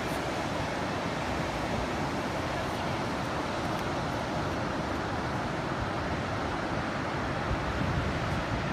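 Ocean surf from a typhoon swell washing onto the beach in a steady, continuous rush, with some wind on the microphone.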